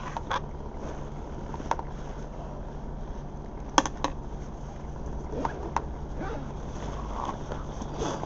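Bus diesel engine idling at a standstill, heard from inside the bus as a steady low hum, with scattered small clicks and rattles; the loudest is a sharp click nearly four seconds in.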